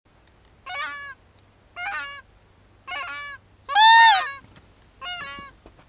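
Goose honks: five short, loud honks in an even rhythm about a second apart, the fourth the loudest.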